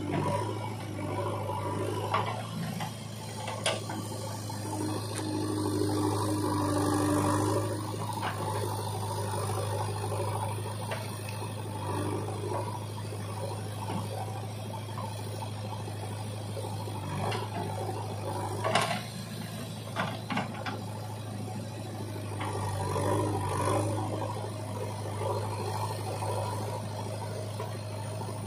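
JCB 3DX backhoe loader's diesel engine running steadily while the backhoe digs mud and swings the loaded bucket over to the trolley, growing louder a few seconds in and again near the end. Sharp clanks sound about four seconds in and several times around twenty seconds in.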